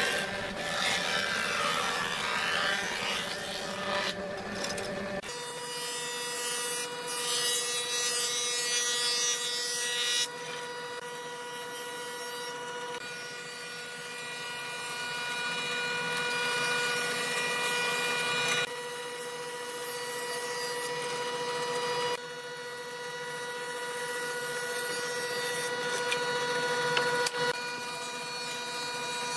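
Wood planing machine (jointer/planer) running, its cutterhead whining steadily as boards are fed across it. The sound changes abruptly several times where separate passes are cut together.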